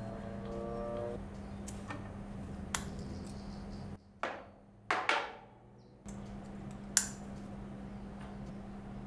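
Steel open-end spanners and a router collet nut clinking and clicking against each other and the spindle as the router bit is changed by hand: a few separate metallic clicks, two of them ringing briefly, the sharpest about seven seconds in. A steady low hum runs underneath.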